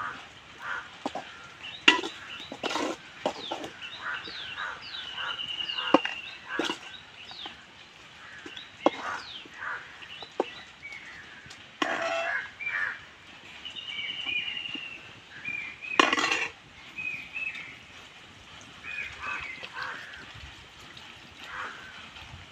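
Birds calling: many short chirps and quick downward whistles with a couple of rapid trills, and two louder, harsher calls near the middle.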